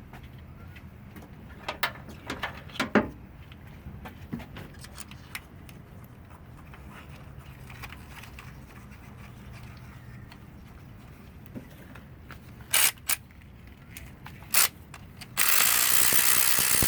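Hand tools clicking and clinking against metal in the engine bay while a spark plug is fitted back into cylinder 3, over a low steady hum. Near the end comes a loud hiss lasting about two seconds.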